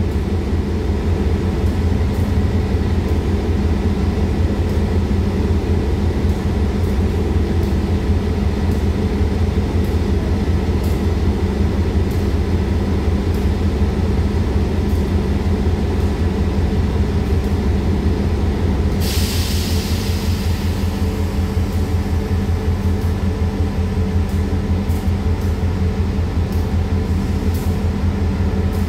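Diesel train engine running steadily at idle, a deep even hum. A short burst of hissing comes about two-thirds of the way through.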